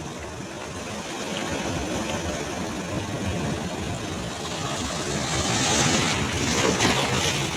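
Ocean surf on a beach: a steady rumble of waves that swells about five seconds in into the louder, hissing wash of a breaking wave near the end.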